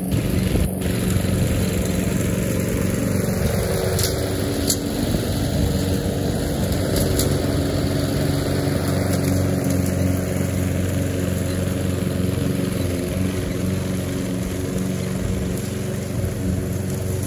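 Gas walk-behind push lawn mower engine running steadily under load while cutting grass, with a few faint clicks.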